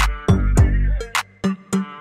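Electronic background music with a drum-machine beat. Deep bass kicks slide down in pitch, with sharp snare or clap hits over a pitched melody.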